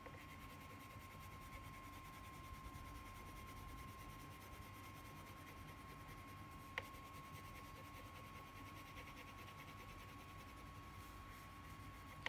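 Near silence: faint room noise with a steady thin high whine, and a single sharp click about seven seconds in.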